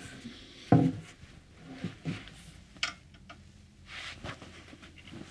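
A wooden base board knocked and shifted against a metal compass pedestal while being fitted onto its bolt: one sharp knock just under a second in, then a few lighter clicks and taps.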